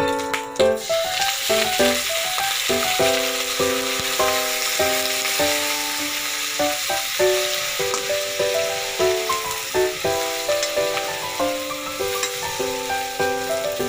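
Food sizzling as it fries in a hot pan, starting about a second in and continuing steadily, under background music with a simple note-by-note melody.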